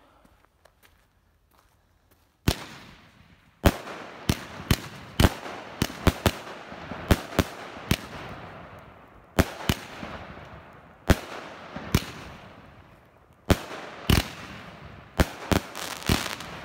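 Grand Cru Tormenta firework battery (cake) firing. After about two and a half seconds of near quiet, sharp bangs go off one after another at uneven spacing, roughly every half second to a second and a half, with crackling and hiss between them.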